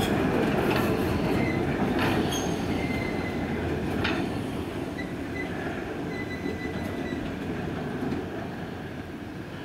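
Small steam tank locomotive rolling slowly away along the track, its rumble fading steadily, with brief high-pitched squeals from the wheels and a few sharp clanks.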